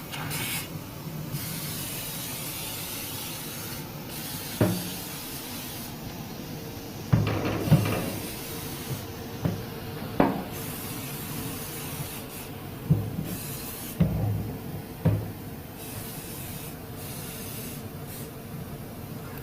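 Hissing spray that starts and stops several times, with a dozen or so sharp knocks and clunks of work on an engine, most between about 4 and 15 seconds in.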